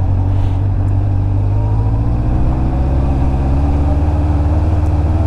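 Honda CBF600's inline-four engine running as the bike is ridden over loose sandy slush, its pitch climbing gradually through the middle and easing slightly near the end.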